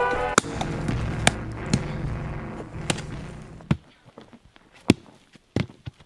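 Music cuts off about half a second in, leaving a low rumble that fades away over the next few seconds. Several sharp knocks and thuds sound over it, with two of the sharpest near the end.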